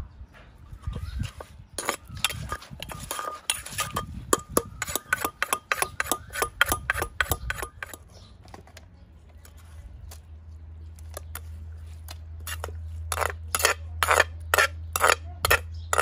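Wooden pestle and spoon knocking in a clay mortar as green papaya salad is tossed with fresh shrimp, a quick run of knocks through the first half. After a quieter stretch, another run of loud knocks and scrapes as the salad is spooned out of the mortar onto a metal plate.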